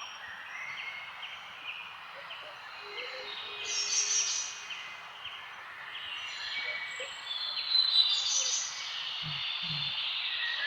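Several birds chirping and calling at once, a dense chorus of short overlapping chirps and trills, swelling louder about four seconds in and again about eight seconds in.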